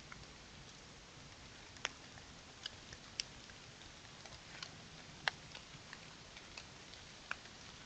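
Water drops falling on dry leaves and rock, giving scattered light ticks at irregular intervals, about one or two a second. They sit over the steady faint hiss of a trail camera's microphone.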